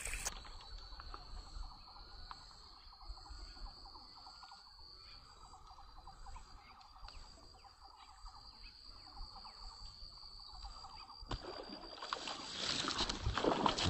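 Insect chorus in a grassy swamp: one steady high-pitched drone over a dense, fast-ticking chirring lower down. About twelve seconds in, louder noise comes in over it.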